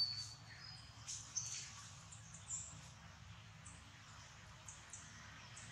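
Faint, short, high-pitched chirps and squeaks, several close together in the first couple of seconds and sparser after, over a low steady background hum.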